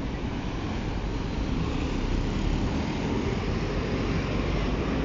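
City street traffic: a steady low rumble of passing vehicles, slowly growing louder.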